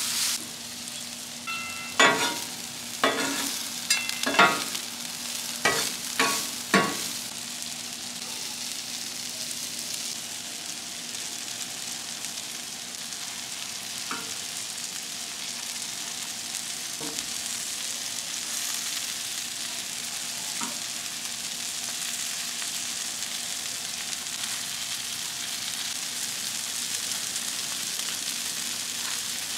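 Taquitos and onions sizzling steadily on the hot steel of a Traeger Flatrock flat-top griddle. In the first several seconds, about seven sharp ringing metal clanks of a spatula against the griddle; later, a few soft clicks of tongs turning the taquitos.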